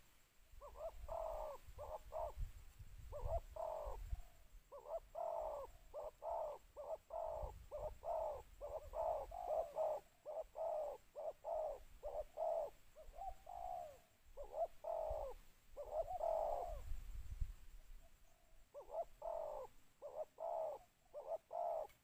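Spotted dove cooing: a long run of repeated short coo notes in groups, with brief pauses between the groups.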